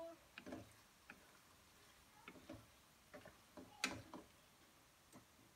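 Wooden spatula stirring pasta in a thick sauce in a frying pan: faint, irregular taps and clicks of wood against the pan, the loudest a little under four seconds in.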